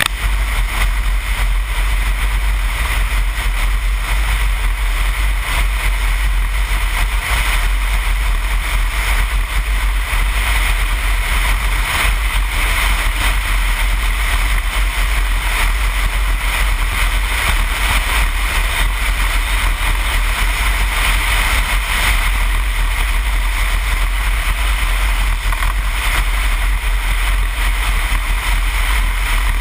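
Steady wind noise over a helmet-mounted camera's microphone at road speed, with a BMW R1200GS motorcycle's boxer-twin engine running evenly underneath.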